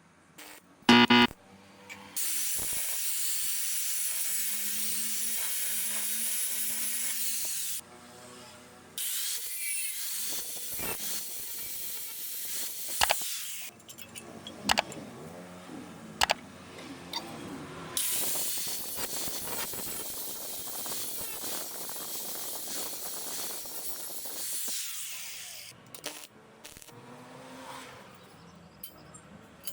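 Stick welding on steel rebar: the arc hisses and crackles steadily in three long runs of several seconds each, starting and stopping abruptly. A few sharp knocks fall in the middle, and a brief loud burst comes about a second in.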